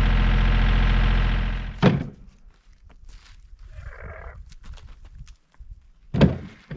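A tractor engine running steadily, then shut off about a second and a half in. A loud thunk follows, then scattered footsteps and light knocks, and another loud thunk near the end.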